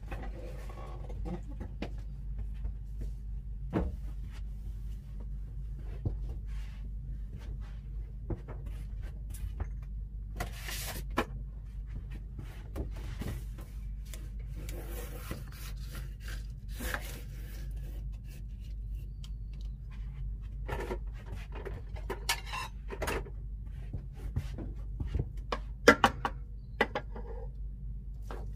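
Scattered clicks, knocks and scrapes of kitchen handling over a steady low hum, the loudest a few seconds before the end; near the end a metal serving spoon scrapes and taps against the aluminium pot as the cooked noodles are stirred.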